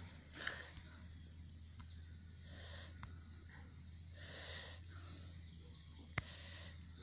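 Faint, steady chirring of insects over a low hum, with a few soft rustles and two sharp clicks, one about half a second in and one near the end.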